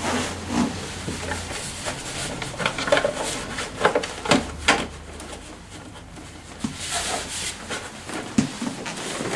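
Plastic front fender of a scooter being handled and fitted into place against the front fork, giving a scattered series of sharp clicks, knocks and light rattles.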